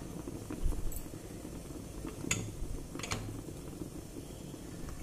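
A few light metal clinks from the open aluminium idli steamer and its plate stand, about three, as the steamed idlis are checked for doneness, over a steady low hum.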